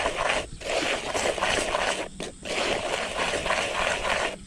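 Hands stirring and rubbing dry powdered fishing groundbait in a plastic bowl: a steady gritty rustling and scratching, with brief breaks about half a second in and just after two seconds.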